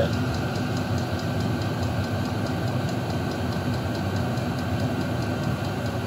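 Chinese diesel air heater running at full output: its fan blows a steady rush of hot air out of the outlet duct, loud but not intolerable, about 70 decibels over the air stream. A faint fast ticking from the fuel dosing pump runs under it.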